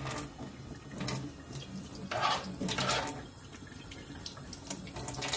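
Kitchen tap running into a stainless steel sink while a knife and then a hand are rinsed under the stream, the splashing louder for a moment a little past the middle.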